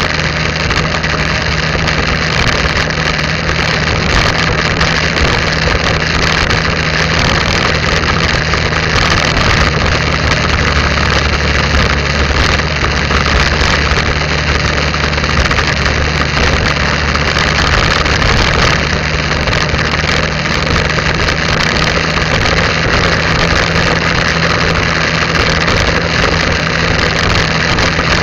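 Motorcycle engine running steadily as the bike rides along at an even speed, a constant low hum under a steady rush of wind and road noise.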